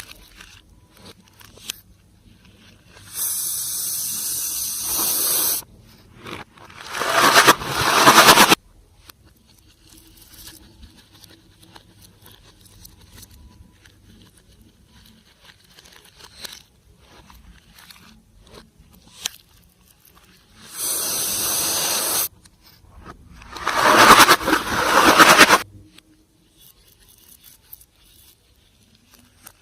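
Slime-making handling noises from plastic and slime. Twice, a steady hiss of about two seconds is followed by a louder, coarser rustle of about two seconds, with faint small clicks and taps between.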